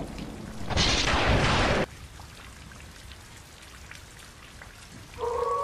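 Cartoon sound effects: a hiss of noise lasts about a second, then the sound drops low, and near the end a steady droning tone starts on two pitches.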